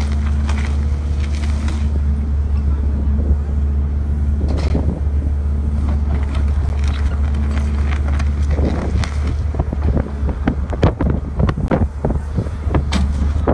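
Steady low hum of an idling engine. Scattered short knocks and rustles come in over the second half.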